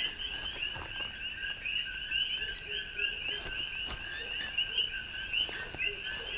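Dense chorus of coqui frogs calling continuously, many overlapping two-note chirps repeating without a break.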